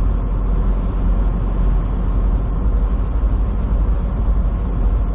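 Steady low rumble of road and engine noise inside a big truck's cab while it drives along.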